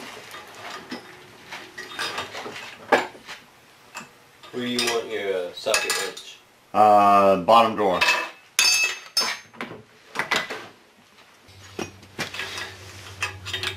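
Small steel tools clinking and knocking against the drill press's cast-iron table and a brass workpiece: a string of sharp metallic clicks. Midway come two louder stretches of a tone that wavers and falls in pitch, and a steady low hum starts near the end.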